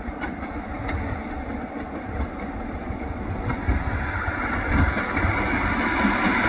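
Class 150 diesel multiple unit approaching, its diesel engines and wheels on the rails growing steadily louder as it nears.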